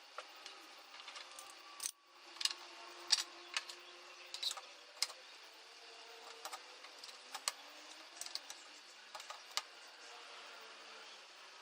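About a dozen sharp metallic clinks and taps at irregular intervals, small metal pieces being handled and set down, over a faint steady hum.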